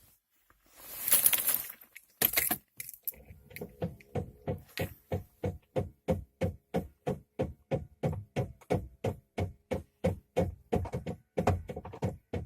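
Audio from a 2-DIN car head unit: a short burst of hiss about a second in, then an even, fast pulse of sharp beats, about three a second.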